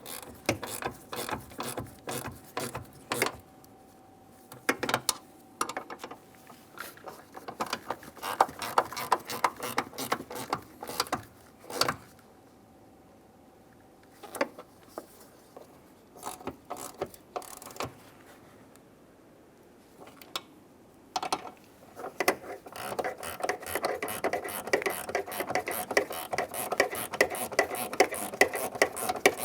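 Hand ratchet clicking in quick runs as the door hinge bolts are snugged up, with a quieter pause in the middle and denser clicking near the end.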